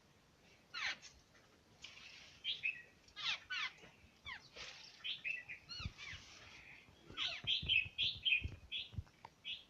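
Several small birds chirping: many short, high, mostly falling chirps, some in quick runs, busiest in the second half. A few faint low thumps sound under them.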